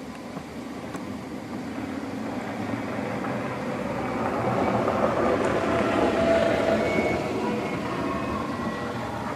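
A motor vehicle passing along a road: its running and tyre noise grows louder to a peak about six seconds in, then begins to fade.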